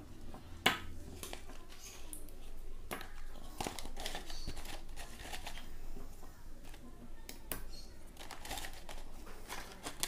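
Leaves being tucked under a small plastic plant pot by hand, crackling and rustling faintly, with scattered small clicks as the pot shifts on a wooden tray.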